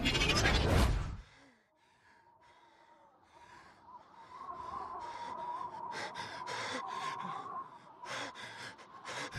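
A loud rushing sound cuts off about a second in. After a moment of near silence, a steady high whine comes in with uneven sputtering pulses, the sound of a racing plane's engine faltering as its reduction gearbox fails.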